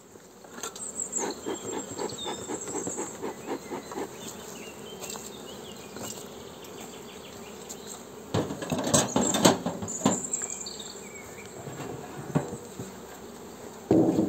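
Honeybees buzzing around an open hive, with the beekeeper's smoker being puffed and, about 8 to 10 seconds in, louder knocks and clatter as the metal hive roof is lifted off.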